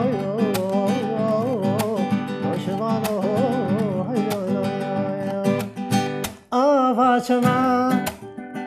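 Classical acoustic guitar strummed and plucked, with a man singing over it. The voice comes in strongly after a brief break about six and a half seconds in.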